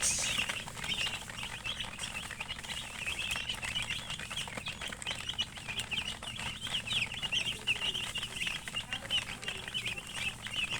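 A group of domestic chicks peeping without pause: many short, high chirps overlapping one another.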